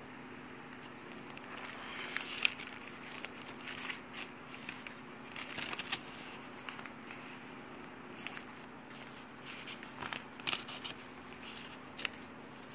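Junk journal pages rustling and crinkling as they are handled and turned by hand, in irregular bursts with a few sharper clicks.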